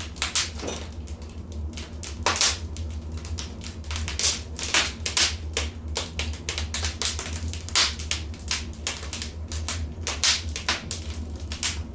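Wood fire crackling in a fireplace: irregular sharp pops and snaps, several a second, over a steady low drone.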